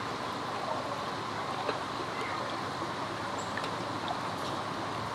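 Minn Kota Endura 30 electric trolling motor pushing the canoe along at a steady speed: a faint steady whine over an even hiss of the boat moving through water, with a few faint ticks.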